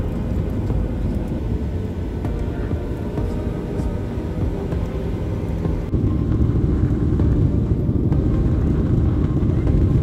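Jet airliner cabin noise heard from a window seat over the wing: a steady low engine and rolling rumble as the plane taxis. About six seconds in it cuts to a louder, rougher rumble as the plane rolls along the runway.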